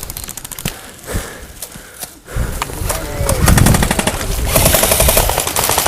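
Airsoft guns firing on full auto, fast rapid-fire strings of shots. The firing is quieter for about the first two seconds, then louder and denser.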